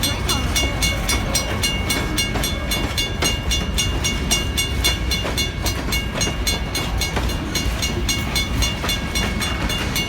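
Freight cars of a BNSF grain train rolling past with a deep steady rumble. Over it runs a rapid, even ringing, about five strikes a second.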